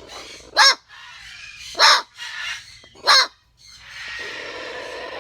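Moluccan cockatoo barking like a small dog: three sharp, loud barks, each well under half a second and spaced a little over a second apart, over a steady background hiss.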